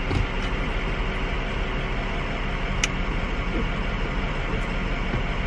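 Steady noise of a running car heard from inside the cabin, a low rumble under an even hiss, with one sharp click about three seconds in.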